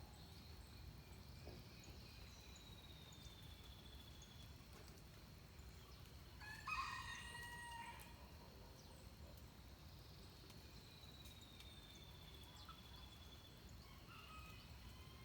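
A rooster crows once, about halfway through, in a single call of about a second and a half. Before and after it a wild bird gives two long, slowly falling high whistles, over a quiet steady background hiss.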